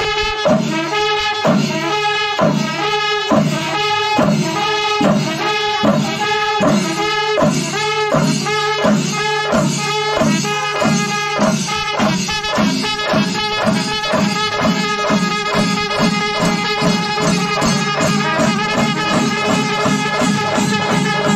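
Brass band playing a tune in a steady run of short, evenly spaced notes.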